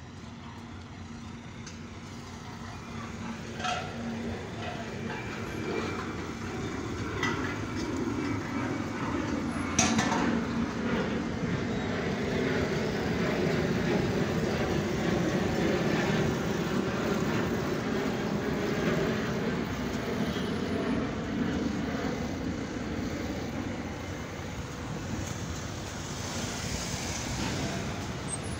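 Road traffic on a busy city street: engines and tyres running steadily, swelling in the middle as vehicles pass close by. A sharp click about ten seconds in.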